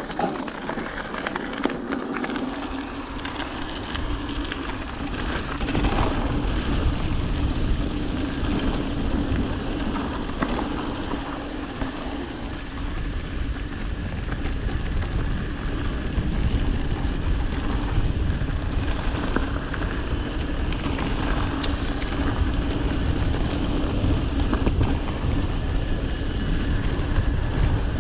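Mountain bike riding along a dirt trail: tyres rolling on dirt and the bike rattling over small bumps, with wind rushing on the microphone and a steady hum underneath.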